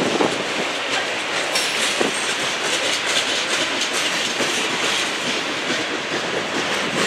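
Freight train of covered hopper cars rolling past: a steady rush of steel wheels on rail, with uneven clicks as the wheels pass.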